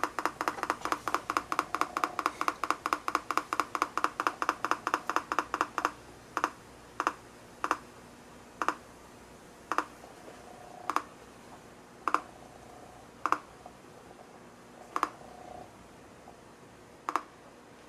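NE555 'raindrop' circuit kit blipping through a tiny, poor-quality speaker: a fast run of short blips about six or seven a second, then about six seconds in it slows to single blips spaced a second or more apart, unevenly.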